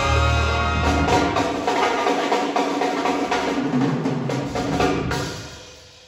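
Jazz big band playing, saxophones, brass and piano over a busy stretch of drum strokes. The band stops about five seconds in and the sound dies away in the hall, ahead of the next cue.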